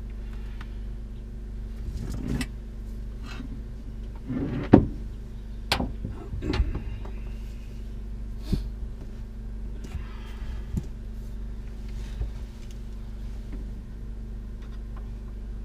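Heavy battery cables being handled and their metal lugs knocking against equipment: several sharp clunks, the loudest about five seconds in. Under them, a steady low mechanical hum.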